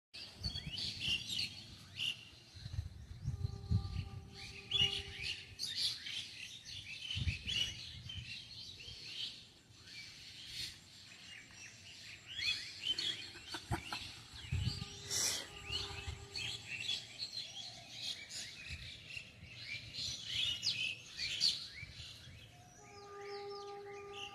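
Several birds chirping and twittering at once, with quick high calls and trills overlapping throughout. A steady humming tone with overtones comes in briefly twice and again near the end.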